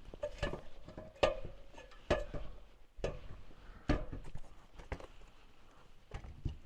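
A series of light knocks and clinks from handling tools and building materials, roughly one a second, some with a short ring after them.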